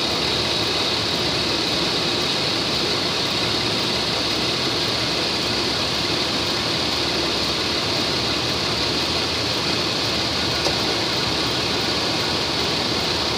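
2011 Chevrolet Traverse's 3.6-litre direct-injection V6 idling steadily, with no change in engine speed, on a high-mileage engine (about 212,000 miles).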